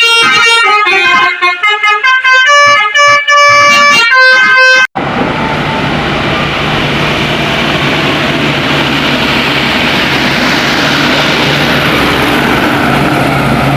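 For about five seconds a melody of clean tones steps from note to note, like a multi-tone telolet horn tune, then cuts off abruptly. Steady roadside traffic noise follows: a vehicle engine running with a low steady hum under road and tyre noise.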